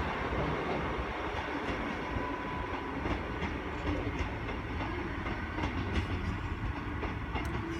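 Two-carriage Class 150 Sprinter diesel multiple unit running steadily, its wheels clicking over the rail joints now and then.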